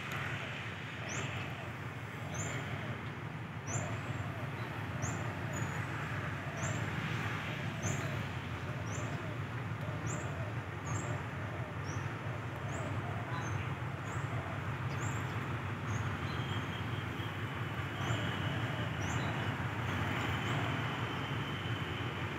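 Steady low diesel rumble of a railway locomotive at a station, with a bird repeating a short, high, rising chirp about once a second throughout.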